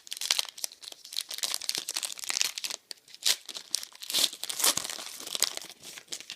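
A trading-card pack wrapper crinkling and tearing as it is ripped open by hand, a dense irregular run of sharp crackles.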